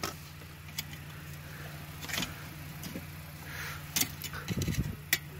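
Scattered light clicks and taps of a truck's plastic fuse box and main-fuse parts being handled, over a steady low hum, with a short run of soft low knocks about four and a half seconds in.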